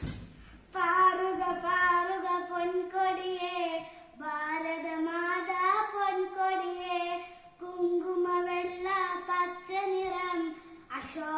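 A child singing unaccompanied, in three long phrases with short breaks for breath between them.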